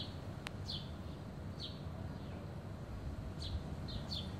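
Short, high chirps, each falling in pitch, repeated about six times at intervals of a second or less over a faint outdoor hiss. The chirps are taken in the title for a kitten imitating a bird.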